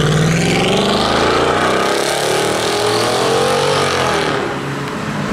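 Mercedes-Benz W220 S-Class AMG sedan accelerating hard away, its engine note rising steadily in pitch for about four seconds, then easing off and fading.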